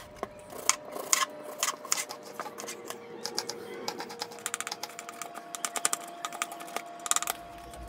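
Kitchen knife dicing an onion on a wooden cutting board: a run of quick, irregular taps of the blade on the board, coming in fast clusters from about three seconds in.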